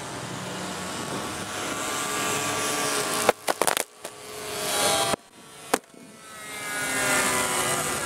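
Engines of several radio-controlled model warplanes droning overhead, their pitch sliding as they pass. Two sharp pyrotechnic bangs cut in, one a little under halfway through and another about two seconds later, with the sound briefly dropping out after each.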